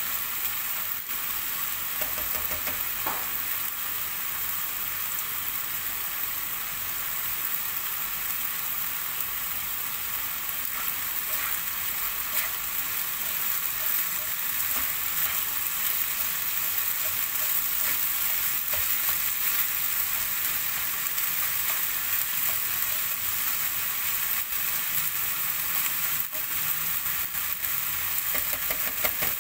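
Minced beef sizzling steadily as it browns in olive oil in a frying pan, with a few light scrapes and taps of the utensil as it is stirred and the lumps are broken up.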